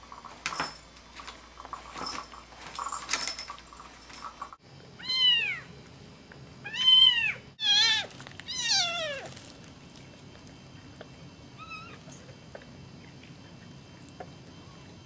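Young kittens mewing: four loud meows about a second apart between five and nine seconds in, then one faint meow near twelve seconds. Before them, scattered light clicks and knocks for the first four seconds or so.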